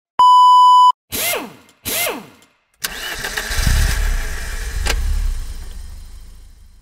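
A steady test-card beep for under a second, then two short sweeping sounds, then an engine starts about three seconds in and runs, swelling and then fading out, with one sharp click partway through.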